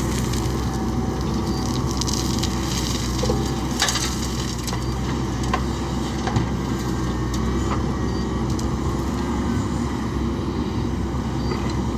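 Diesel engine of a JCB backhoe loader running steadily under work, with a few short sharp knocks, the loudest about four seconds in.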